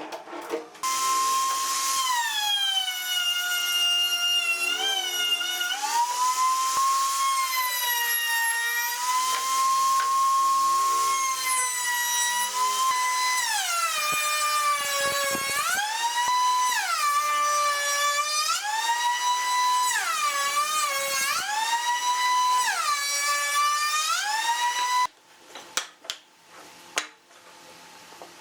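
Electric power tool motor running at high speed with a high whine. It repeatedly drops in pitch as it bogs down under load cutting wood, then recovers, at a steady rhythm of about one dip every two seconds in the second half. It stops suddenly, followed by a few clicks.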